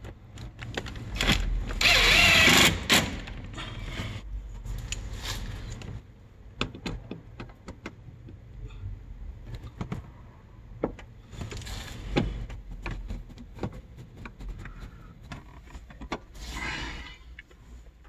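Cordless driver running for a second or so, driving a screw into a car door's armrest and power-window switch panel. This is followed by a scatter of sharp plastic clicks and knocks as the panel is handled and pressed into place, with another short burst of noise near the end.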